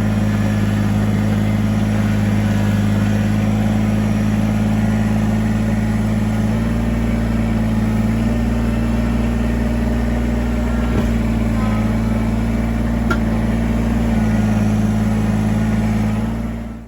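Kubota BX23S subcompact tractor's three-cylinder diesel engine running steadily, its note shifting slightly twice.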